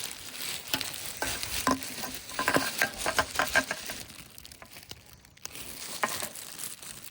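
A person urinating onto dry forest ground to mark the camp against coyotes: a steady spattering hiss mixed with many small crackles, dropping away briefly about five seconds in, then resuming.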